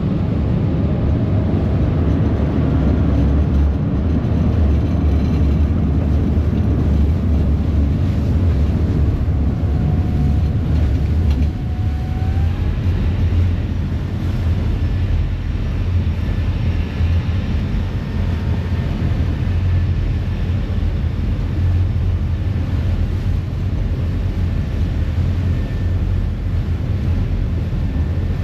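Harbour ferry's engines running steadily under way, a deep continuous rumble, with water churning in the propeller wash behind the stern.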